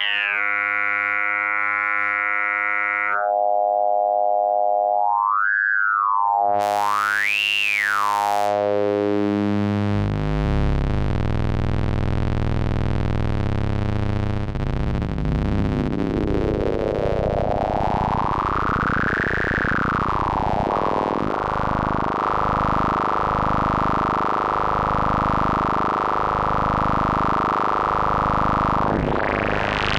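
K-ACCUMULATOR synthesizer module playing on its own: a pitched pulsar tone whose bright peak sweeps up and down through its harmonics several times. Partway through, it changes to a thicker, denser low tone of folded and stretched subharmonics, with one slow sweep up and back down near the middle.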